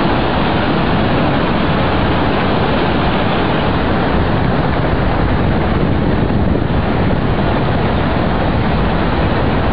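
Loud, steady rushing noise with no pitch or rhythm, like surging water or wind.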